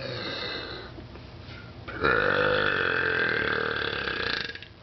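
A person belching on purpose: a shorter burp, then one long, loud burp of about two and a half seconds starting about two seconds in.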